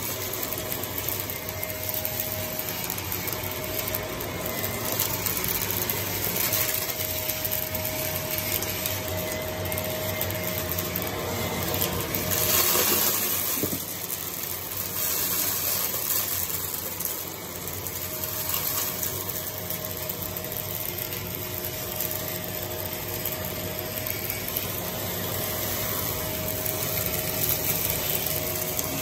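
Vacuum cleaner running steadily over carpet, its motor hum to the fore, as it picks up a thick, clunky mix of debris that rattles through it.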